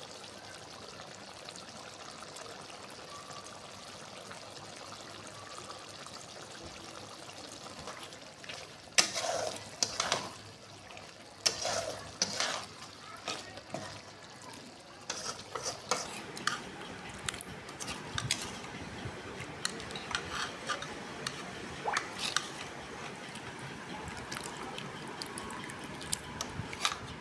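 Liver frying with a steady hiss, then from about nine seconds in a utensil stirring and scraping in the pan with repeated sharp clinks.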